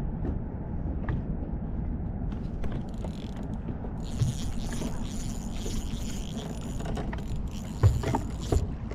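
Fishing reel being cranked with a whirring, ratcheting sound while a hooked bass bends the rod. Wind rumbles on the microphone.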